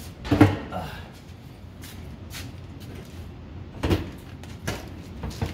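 A heavy thump about half a second in as a marble-topped table is set down, then a couple of lighter knocks near the end.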